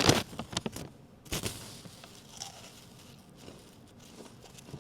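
A cluster of sharp knocks and clicks in the first second, then a single thump, then faint room noise: objects being handled and set down.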